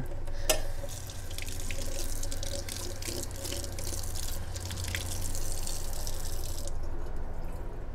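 Kitchen tap running into a stainless steel sink, a steady splash of water that cuts off abruptly near the end. A single knock comes about half a second in, just before the water starts.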